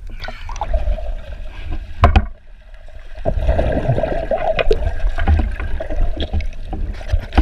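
Lake water sloshing at the surface, a splash about two seconds in as the swimmer and camera go under, then muffled underwater sound of a swimmer blowing bubbles, heard through a waterproof action-camera housing.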